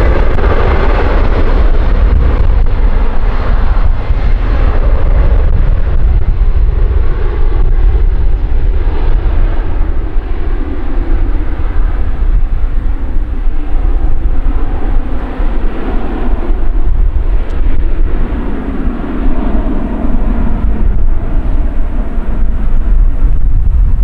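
Embraer E190 jet's twin turbofan engines at take-off power as it accelerates down the runway, a continuous jet noise whose tones shift as it passes. Heavy wind buffeting on the microphone gives a constant deep rumble underneath.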